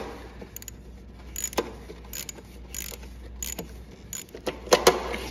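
Hand socket ratchet clicking in short, irregular spurts as it is worked back and forth on a battery cable bolt, with the loudest clicks near the end.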